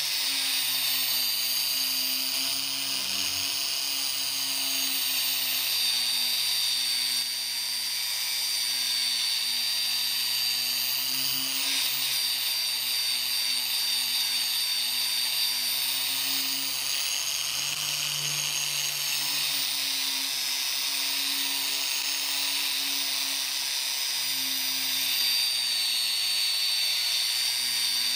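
Electric drill spinning a wire cup brush against a rusty perforated meat-grinder plate, scrubbing the rust off. It makes a steady motor whine under a loud, high scraping hiss of wire on metal.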